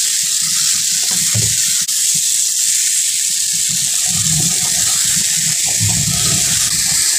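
Mashed Bombay duck fish and potatoes sizzling steadily in hot oil in a non-stick kadai over a high gas flame. A spatula stirs and scrapes the mixture in several spells.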